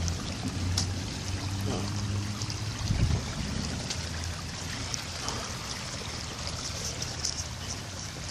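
Storm runoff water running steadily like a small stream. A low hum sounds under it during the first half, and there is a thump about three seconds in.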